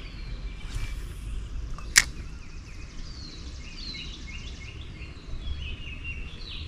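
Outdoor creek-side ambience: several birds giving short falling chirps over a low steady rumble, with one sharp click about two seconds in.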